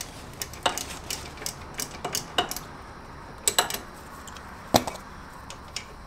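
Irregular light metallic clicks and taps from hand and tool working the top 12 mm mounting bolt out of an ATV brake caliper, with a few louder clicks in the second half.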